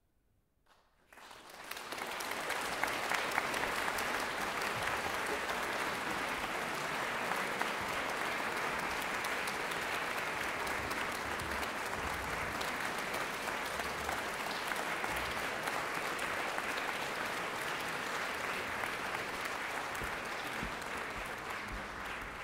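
Audience applauding, starting suddenly about a second in after a moment of silence and continuing at an even level.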